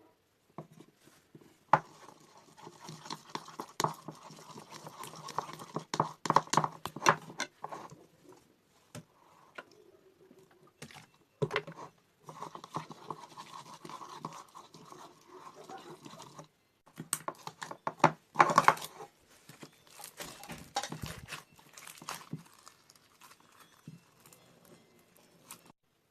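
Slime being worked, squished and pulled, giving irregular sticky clicks and crackles in clusters with short pauses between them.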